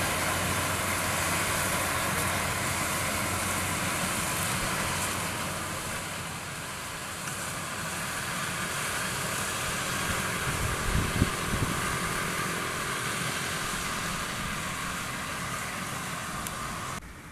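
Combine harvester's diesel engine and threshing machinery running steadily, a dense mechanical hiss over a low drone, with a few short knocks about two-thirds of the way through. The sound drops off suddenly near the end.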